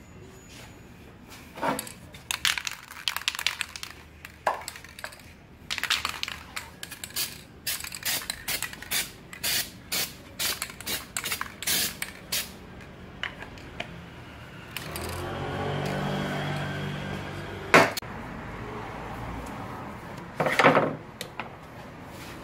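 Hand work on a Kia Bongo 3 rear brake drum on a steel workbench: repeated metallic scraping and clinking strokes, about two a second through the middle. About two-thirds of the way in comes a few seconds of steady noise, then a sharp knock, and a short loud clatter near the end.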